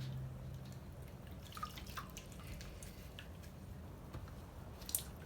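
Socks being rinsed by hand in a basin of water: faint splashes and drips, with a few sharper splashes.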